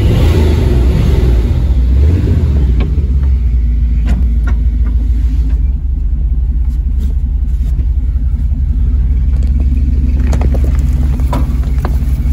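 An old van's engine pulling it up a driveway, heard from inside the cabin: a loud, steady low rumble with the van rattling and knocking throughout.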